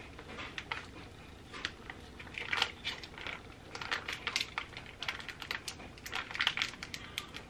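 Foil icing pouch and clear plastic piping bag crinkling as they are handled and the icing is squeezed from one into the other: a run of small, irregular crackles and clicks.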